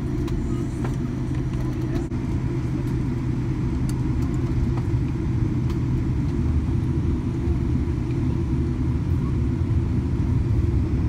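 Cabin noise inside a Boeing 787-9 as it taxis: a steady low rumble from the engines and the rolling wheels, growing slightly louder.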